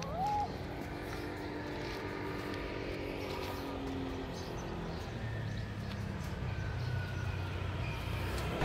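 A kitten gives one short, rising mew right at the start, over a steady low engine drone from passing traffic.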